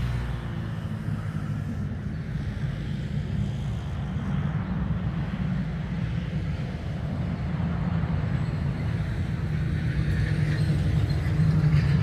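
Steady low rumble of passing vehicles, slowly growing louder toward the end.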